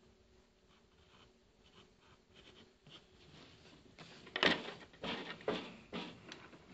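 Faint pencil strokes on sketchbook paper, then from about four seconds in a handful of knocks and rustles of objects being handled on the desk.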